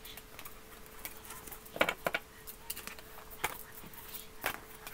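Tarot cards being shuffled and handled by hand: scattered soft clicks and taps of card on card, with a few sharper snaps about two seconds in.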